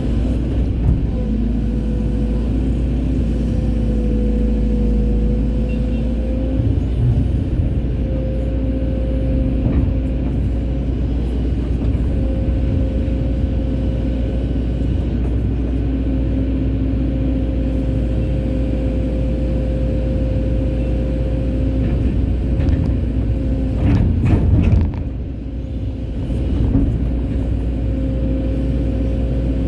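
Hydraulic excavator's diesel engine running steadily, a continuous drone with a held steady tone over it, briefly dropping in level about 25 seconds in.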